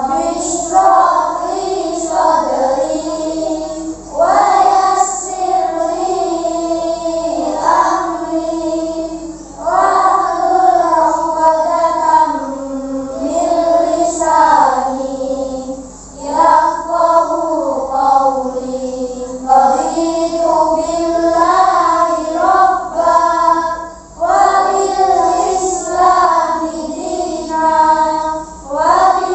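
A class of young children chanting a prayer together in unison to a sing-song melody, in phrases of a few seconds with short pauses for breath between them.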